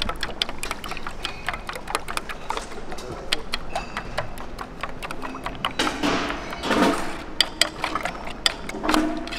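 Metal spoon beating raw eggs in a stainless steel bowl: rapid, irregular clinks of the spoon against the bowl.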